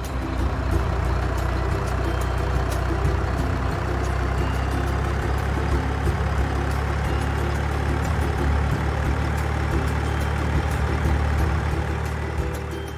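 Heavy engine running steadily, like a truck idling, a low rumble with many small clicks over it. It starts suddenly and fades near the end.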